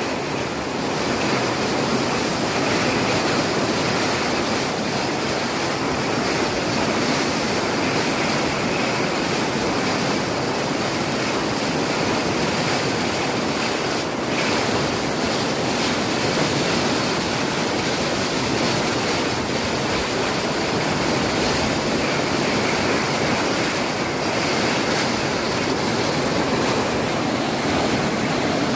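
Floodwater rushing in a torrent: a steady, loud, unbroken water noise.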